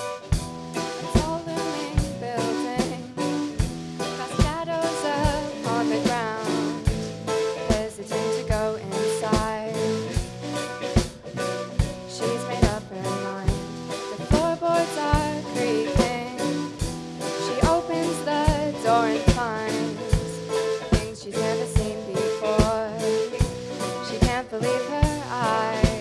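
Live rock band playing: a drum kit keeps a steady beat under electric guitar, bass and keyboard, with a girl singing into a microphone.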